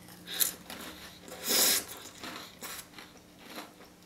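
Close-up eating sounds of a bite taken from a crispy Nutella-covered waffle and chewed: a few separate crunches and wet mouth sounds, the loudest about a second and a half in.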